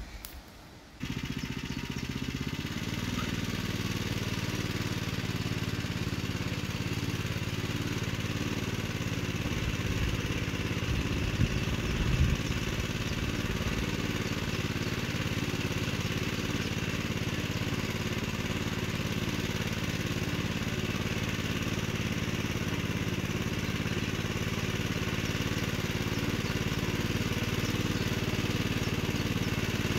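Walk-behind tractor's engine running steadily under load while it drives rotary tiller blades through garden soil between rows. It is briefly louder about twelve seconds in.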